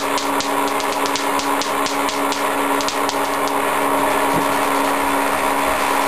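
Home-built Van de Graaff generator running, its belt-drive motor giving a steady hum, while sparks snap from the dome to a handmade ground wand as a rapid, irregular crackle over the first three seconds or so, then only now and then.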